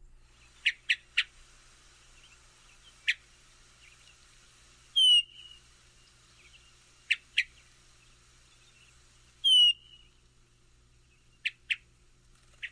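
Hermit thrush calls, two kinds. Short sharp call notes come singly or in quick runs of two or three, and twice a louder, longer call slides down in pitch and ends in a brief held note.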